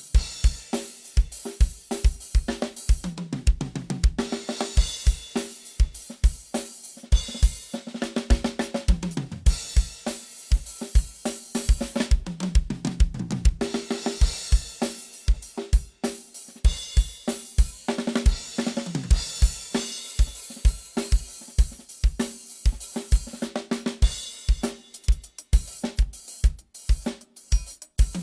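Acoustic drum kit played solo as a sound check: a steady kick drum pattern with snare, hi-hat and crashing cymbals. Several times it breaks into tom fills that run down from the high toms to the floor tom.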